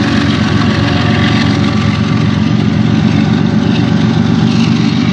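Diesel-electric freight locomotive on the tail of a train running steadily as it passes close by: an even, deep engine drone over the noise of the moving train.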